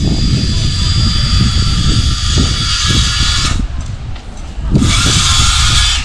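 A power tool whirring with a high-pitched hiss. It cuts out about three and a half seconds in and starts up again about a second later.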